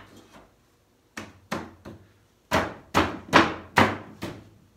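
Sharp wooden knocks on a walnut sideboard frame as a side panel is tapped down into its grooves: two single knocks about a second in, then a quick run of about six, roughly 0.4 s apart.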